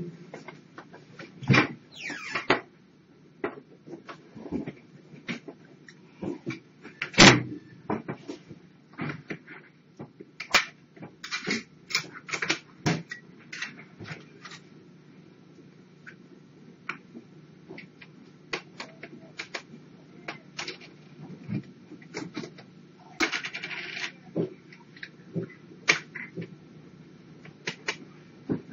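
Irregular clinks, taps and knocks of dishes and containers being handled at a counter, with a loud knock about seven seconds in, over a steady low hum.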